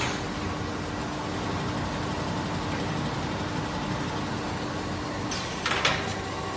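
Automatic four-side quilt sewing machine and the factory machinery around it running steadily, with a steady hum that stops about five seconds in. A few short, sharp noises follow near the end, the loudest just before the end.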